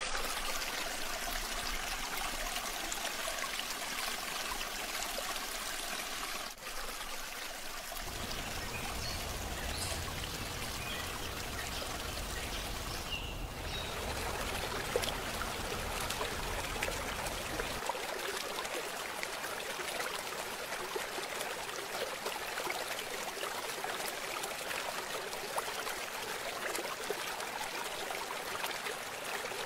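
Water flowing steadily along a small concrete-lined canal, an even rushing stream sound. A low rumble joins it for about ten seconds in the middle.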